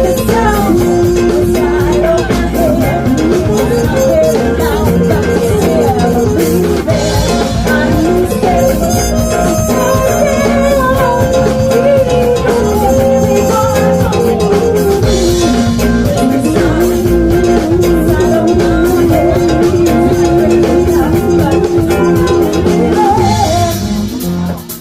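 Loud music: a held, sliding melody over a dense steady rhythm, which cuts off suddenly at the very end.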